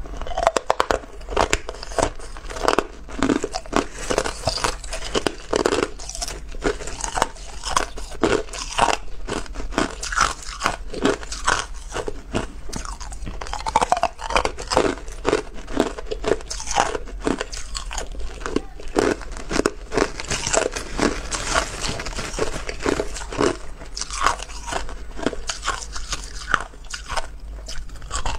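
A person biting and chewing hard crushed ice: a dense, irregular run of sharp crunches and cracks, several a second. A steady low hum runs underneath.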